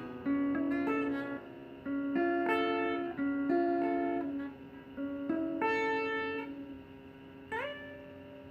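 Guitar played by plucking: a run of single notes and chords. About seven and a half seconds in, a note slides up in pitch and is left to ring out and fade.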